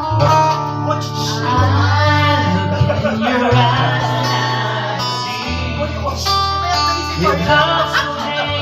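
Acoustic guitar music, with held bass notes changing every second or two and a singing voice over them.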